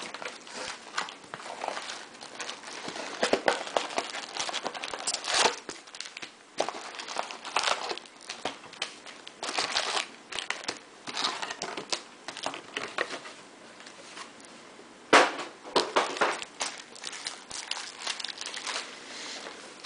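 Foil-wrapped trading-card packs crinkling and clicking against each other as they are taken out of their cardboard box and stacked. The crackles come irregularly, with the sharpest one about fifteen seconds in.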